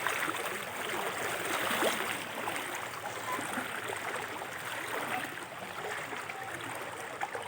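Flowing floodwater: a steady rush of water.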